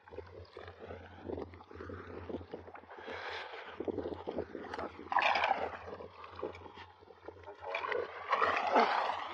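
Water splashing in several bursts as a hooked fish is played on a long fishing pole, over a steady wind rumble on the microphone.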